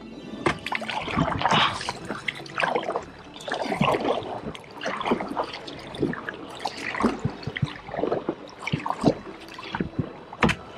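Water sloshing and splashing in a series of uneven strokes, about one a second.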